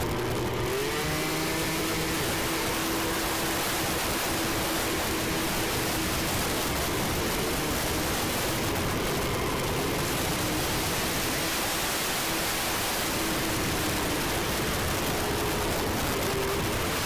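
A 50cc two-stroke scooter engine with an Airsal T6 cylinder kit running steadily on the move, its note rising briefly about half a second in, under heavy wind noise on the microphone.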